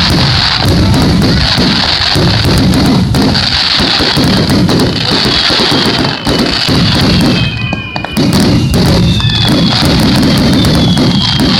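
Fireworks barrage: loud, continuous booming shell bursts and crackling, with several high whistles in the second half.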